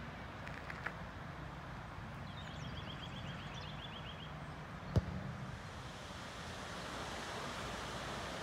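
Open-air ambience with a low steady rumble, a bird's rapid trill near the middle, and one sharp click about five seconds in. Toward the end a steady splashing hiss of water fountains comes in.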